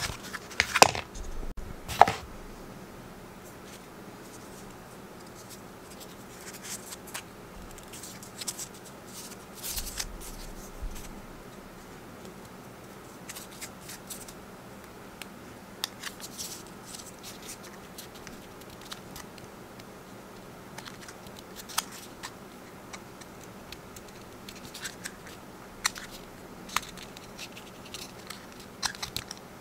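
Hands handling paper packaging and the watch's protective wrap: scattered rustles, scrapes and small clicks, with two louder scrapes in the first couple of seconds.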